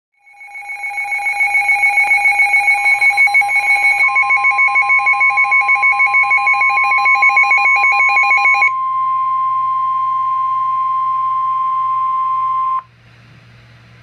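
NOAA weather radio receiver sounding its warning alarm for a Severe Thunderstorm Warning. A fast-pulsing two-pitch beeping swells in over the first second and stops after about eight and a half seconds. From about three seconds in it is joined by the steady NOAA Weather Radio warning alarm tone, which carries on alone and cuts off near the end.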